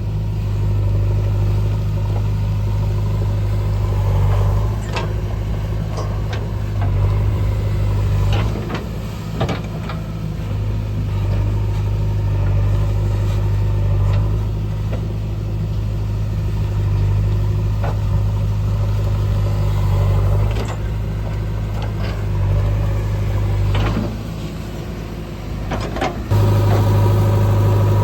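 Diesel engine of a JCB backhoe loader running with a steady low hum, easing off twice and stepping up suddenly near the end as the load changes. Several sharp knocks are scattered through it.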